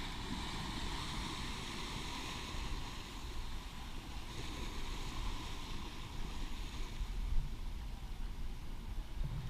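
Steady wash of surf with wind rumbling on the microphone.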